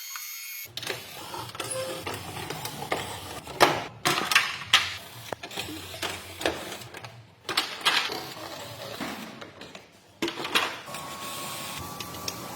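Irregular mechanical clicks and knocks, some in quick clusters, typical of hand tools and fasteners being worked on a car, with a faint steady tone near the end.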